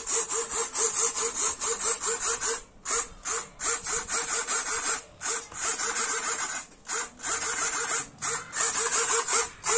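Two 9-gram micro servos driving the ailerons, buzzing in quick bursts, about five a second, as the transmitter stick is worked back and forth. There are brief pauses a few times.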